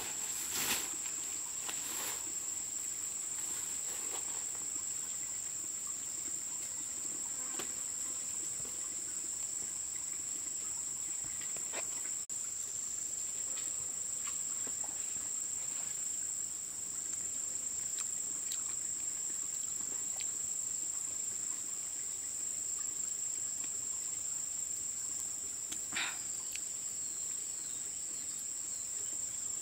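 Steady high-pitched drone of an insect chorus in the forest, one unbroken tone throughout. Scattered light clicks and rustles sit under it, with one sharper click near the end.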